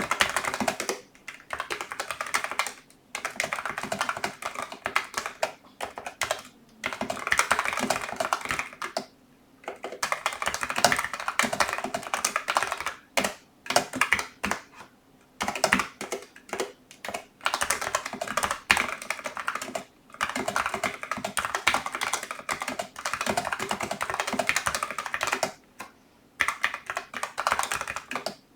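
Typing on a Logitech MX Mechanical Mini keyboard with tactile brown switches: fast runs of key clicks in bursts of a few seconds, broken by short pauses.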